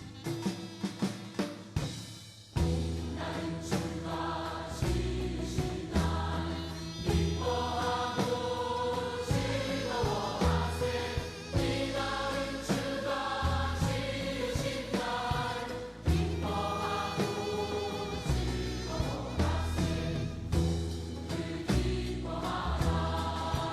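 A few sharp drum strikes, then about two and a half seconds in, music with choir-like singing over a deep bass comes in and carries on.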